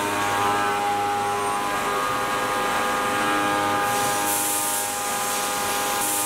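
Haas VM3 CNC mill's spindle and end mill roughing aluminium: a steady whine of several pitches from the cutter in the cut, some tones shifting as the toolpath moves. Bursts of hiss come about four and six seconds in.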